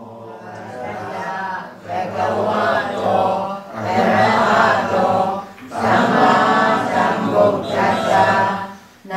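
Buddhist chanting led by a monk into a handheld microphone, in drawn-out phrases of about two seconds with short breaks between them. It fades in at the start.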